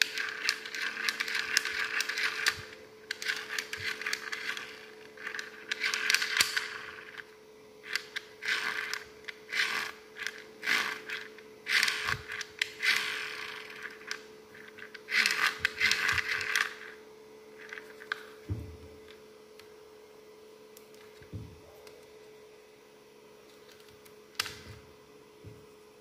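Small plastic handheld mini fan being run and handled: irregular bursts of whirring and plastic rattling with clicks, over a faint steady hum. In the second half it is quieter, with only a few single clicks as the fan is handled.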